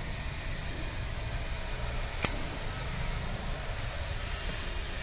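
A single sharp click about two seconds in, as a quick-connect fuel pipe is snapped onto the diesel filter head, over a steady background hum.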